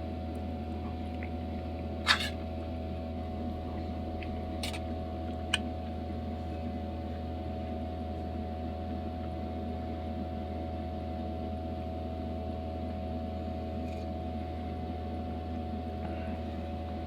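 Steady mechanical hum with faint steady tones, broken by light clicks of a utensil against a dish about two and four and a half seconds in and a smaller tick about five and a half seconds in.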